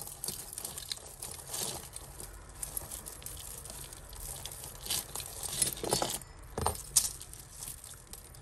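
A tangled mass of costume jewellery jingling and clinking as hands work at the knot: fine metal chains, charms and beads tapping together in a constant irregular patter, with a few sharper clinks about five to seven seconds in.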